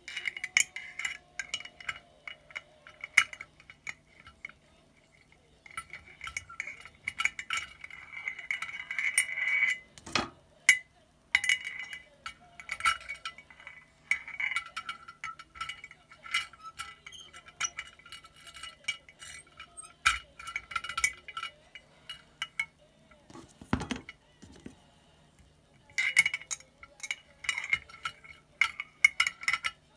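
Irregular clinks and taps against a glass bottle, each leaving a short ringing tone, as plastic model parts are worked and fitted together inside it. The taps come in bursts with short pauses between them.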